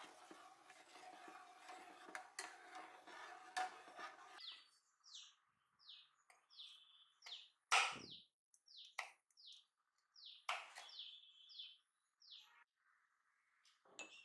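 A spoon stirs and scrapes through cooking semolina milk in a metal pot, with a few light taps on the pot. Then a knife cuts blanched almonds on a wooden cutting board, giving a few sharp chops, the loudest about eight seconds in. Meanwhile a bird chirps over and over in short falling calls, about two a second, and a clay cup knocks down on a table near the end.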